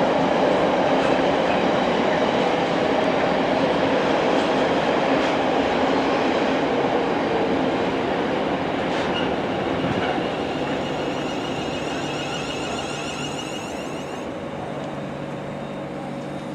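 London Northwestern Railway Class 350 Desiro electric multiple unit running into the platform and slowing, a steady rumble of wheels and motors that fades gradually, with a faint high whine in the second half.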